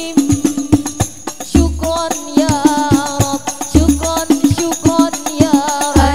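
Al-Banjari sholawat ensemble: women singing a melodic line in unison over rapid, interlocking frame-drum (terbang) strokes, with a deep bass-drum boom about every two seconds.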